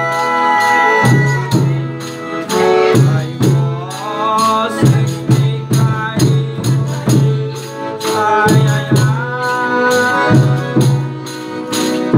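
Folia de Reis folk music: voices singing over a tambourine and other instruments, with a steady beat.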